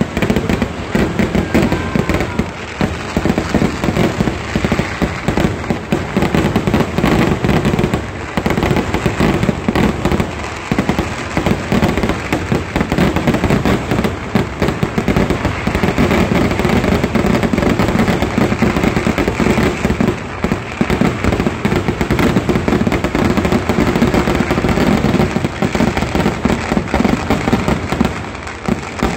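Fireworks barrage: aerial shells and firecrackers going off in a dense, continuous rattle of bangs and crackling, with a few brief lulls.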